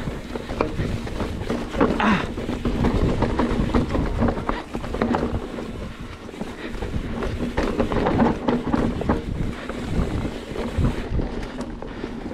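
Mountain bike rolling fast down a rough dirt trail covered in dry leaves: the tyres rustle through the leaves and the bike rattles and knocks over roots and bumps, with wind buffeting the microphone.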